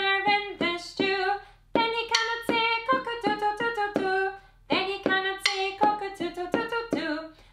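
A woman singing a children's song line by line, unaccompanied, with sharp wooden drumstick taps landing on some of the beats. There are two short breaks between sung lines.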